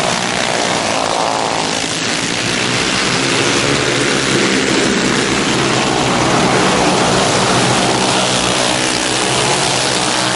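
A pack of alcohol-fuelled racing kart engines running hard together, several small engines overlapping in a constant high-revving drone, their pitch sweeping up and down as karts pass and go round the turns.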